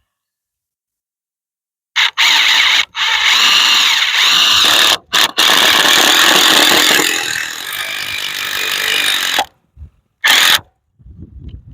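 Power drill running in several loud bursts with short stops between them, then one brief final burst.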